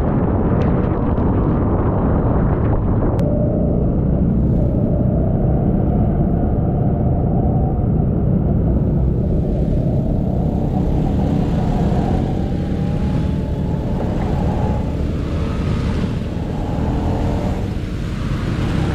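Vespa Super scooter's two-stroke single-cylinder engine running on the road under a heavy low rumble, its pitch wavering slightly. The sound changes abruptly about three seconds in.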